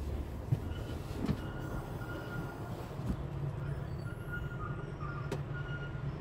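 Steady low mechanical rumble heard inside a truck cab, with a few light clicks and knocks scattered through it.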